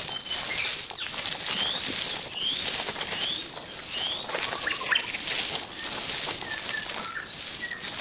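Outdoor birds calling: a run of short rising chirps in the first half and a few whistled notes later, over a high hiss that pulses about once a second.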